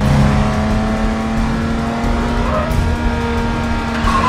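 A car driving at steady highway speed, heard from inside the cabin: an even engine drone over road rumble.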